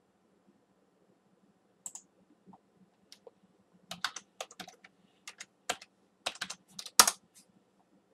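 Computer keyboard typing: scattered keystrokes begin about two seconds in and grow denser, with one louder click near the end.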